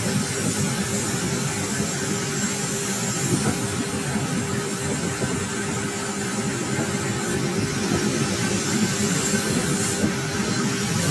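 Metal lathe running steadily with a cutting tool taking a cut across a spinning metal disc: an even machine hum with a faint steady tone under a hiss.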